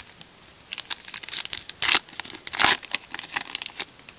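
Wrapper of a 2013 Topps Magic Football card pack crinkling and tearing as it is opened, a rapid run of crackles with two louder ones in the middle.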